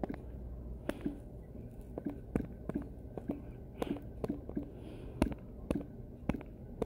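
Irregular light taps of fingers typing on a phone's touchscreen keyboard, about one to two a second.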